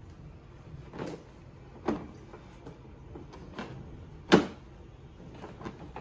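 Hard plastic clunks and clicks from a child car seat being handled and shifted on its ISOFIX mounting. About five separate knocks, the loudest a little past the middle.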